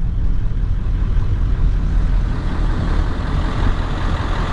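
A vehicle engine idling steadily, a low rumble.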